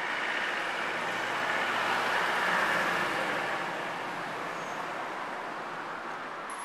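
Street traffic: a vehicle passing, its tyre and engine noise swelling to a peak about two and a half seconds in and then fading.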